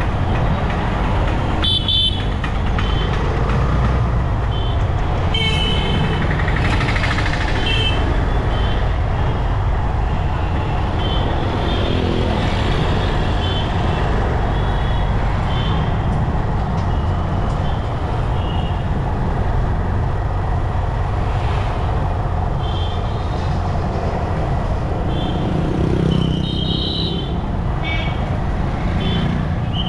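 Steady road traffic and vehicle engine noise from a moving motorbike, with many short vehicle horn toots sounding again and again.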